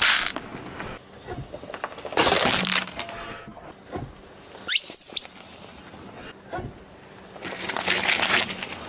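A car tyre rolls over small objects on asphalt. About two seconds in there is a crunching burst. Around five seconds in, rubber ducks give a cluster of sharp high squeaks as they are squashed. Near the end, a row of cardboard matchboxes is crushed with a longer crunch.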